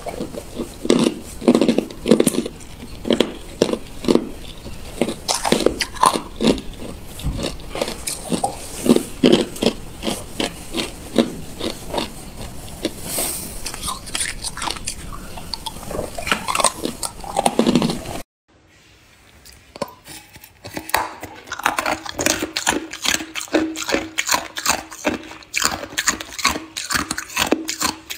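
Hard ice cubes being bitten and chewed, a quick run of loud crunches and cracks. About two-thirds through, the sound cuts off suddenly. A different recording follows: a dense run of sharp clicks and crackles over a faint steady hum.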